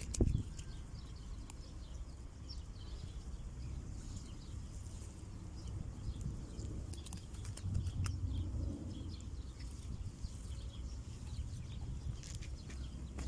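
Outdoor ambience at a pond bank: wind rumbling on the microphone, with scattered small clicks and ticks and one thump right at the start.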